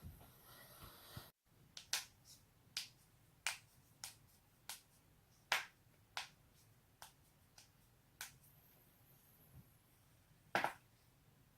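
A series of sharp, separate joint cracks and pops, about a dozen at uneven intervals, one of the loudest near the end coming as a quick double pop.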